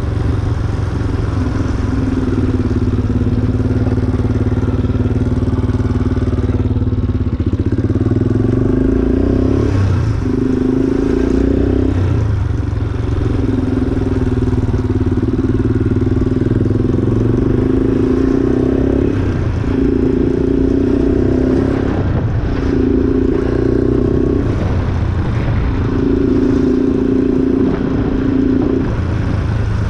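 Yamaha Raptor 350 quad bike's single-cylinder four-stroke engine running steadily as it is ridden along, its note dropping away briefly several times between steady stretches.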